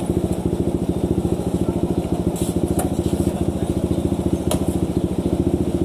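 Small motorcycle engine idling steadily, a rapid even putter, with a few faint clicks over it.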